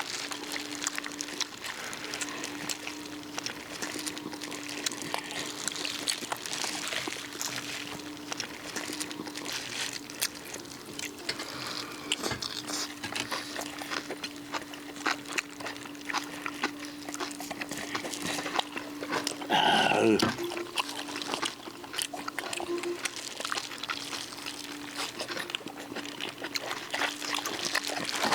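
Eating sounds of grilled duck being chewed and torn apart: many small clicks and wet mouth sounds. A steady low hum runs underneath, and a brief animal call comes about twenty seconds in.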